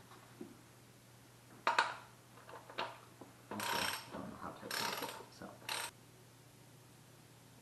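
Hand socket ratchet clicking as a motorcycle engine mounting bolt is worked: a couple of sharp clicks, then three short runs of rapid clicking from about three and a half to six seconds in.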